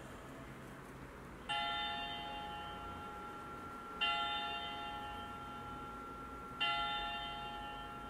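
Recorded church bell sound effect played from the sound button of an Usborne 'Night Sounds' board book: three bell strikes about two and a half seconds apart, each ringing on and fading slowly.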